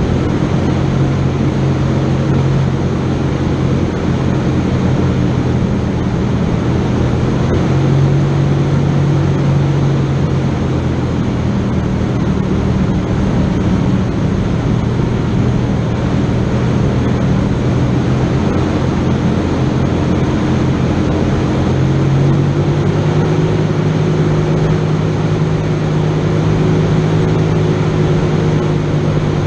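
Off-road vehicle engine running steadily at low revs, its pitch rising a little about two-thirds of the way through.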